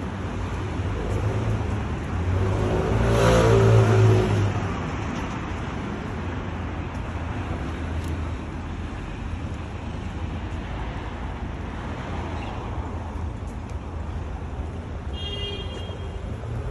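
City street traffic rumbling steadily, with a motor vehicle's engine passing close and loudest about three seconds in, then fading back into the traffic.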